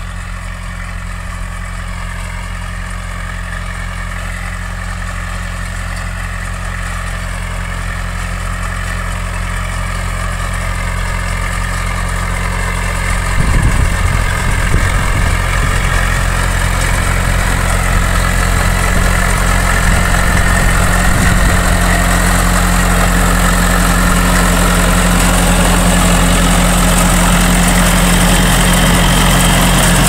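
John Deere tractor's diesel engine running steadily under load as it pulls a potato digger, growing louder as it comes closer. Toward the end the rattle of the digger working through the soil joins the engine.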